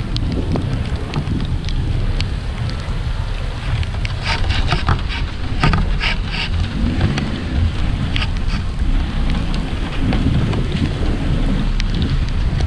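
Steady rain falling, with drops ticking close to the microphone, most densely a few seconds in, over a continuous low rumble.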